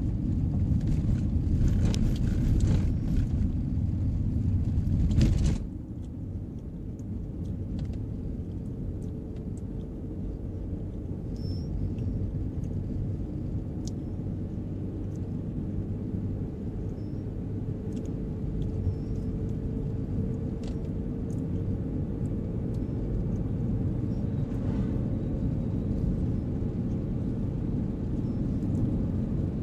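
Road noise heard inside a moving car: tyres rumbling on a gravel road, then about five seconds in the noise drops suddenly as the car rolls onto pavement, leaving a quieter, steady road rumble with a faint hum and a few light ticks.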